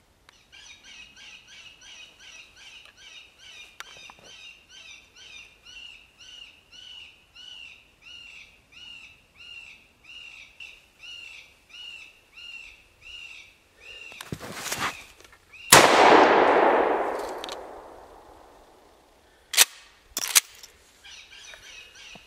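Electronic predator call repeating a short, high cry about twice a second, then a single loud shotgun blast of 00 buckshot about sixteen seconds in that rings off over a few seconds. Two sharp clicks follow, and the call's cries start again near the end.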